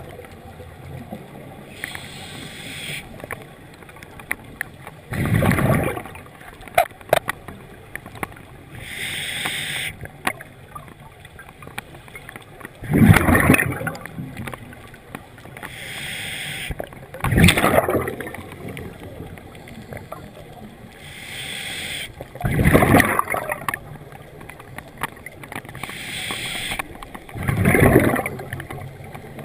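A scuba diver breathing through a regulator underwater: quieter hissing inhales alternate with loud bubbling exhales, five exhales every four to seven seconds.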